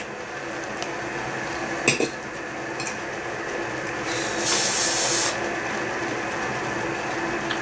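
Stovetop kettle heating on the gas stove: a steady rushing hiss that grows slowly louder, with a sharper, brighter hiss for about a second some four seconds in. A small click about two seconds in.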